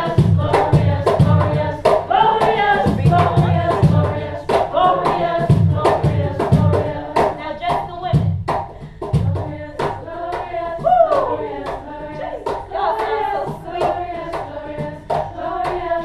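Voices singing a song together over steady hand clapping, with low drum beats in the first half.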